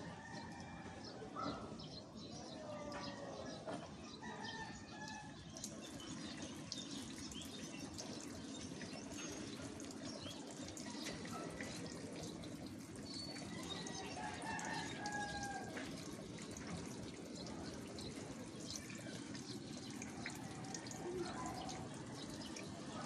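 A weak spray of water from a nozzle-less homemade sprinkler pipe pattering onto leaves and soil in a plant box. A rooster crows in the background a couple of times, near the start and about two-thirds of the way through.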